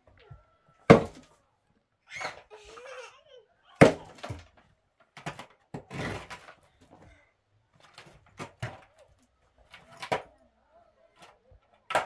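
Irregular knocks and thuds of hard objects being handled or struck, with two louder sharp knocks about one second and four seconds in.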